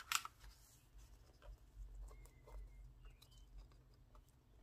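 Faint rustling and light taps of a sheet of vellum tracing paper being handled over a paper printout, with one sharper crinkle at the start. A low steady hum underneath.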